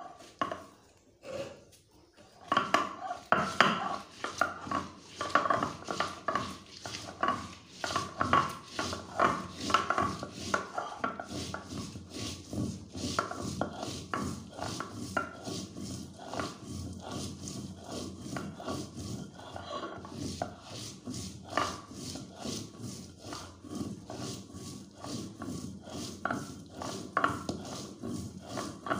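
Dried red chillies being crushed on a sil-batta: a cylindrical grinding stone rolled and rubbed back and forth over a flat pitted stone slab in quick, regular scraping strokes. A couple of knocks come first; the grinding starts about two seconds in, is louder for the first ten seconds or so, then goes on a little softer and steady.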